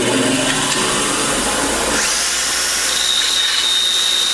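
Milwaukee cordless drill motor running flat out with its chuck spinning, run to get the stuck chuck to unlock. A thin steady high whine joins about three seconds in.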